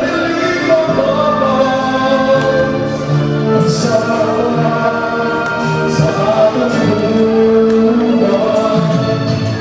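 Music: a song with sung vocals over a steady accompaniment.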